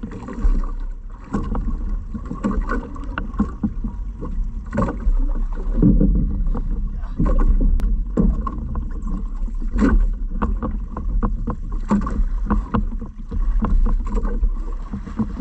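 Water sloshing around a small boat, with irregular knocks and thuds from handling on board and a steady low rumble.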